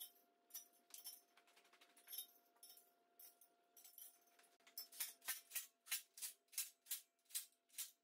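Faint background music: a shaker-like beat, about two and a half strokes a second, that comes in about five seconds in, with scattered light clicks before it.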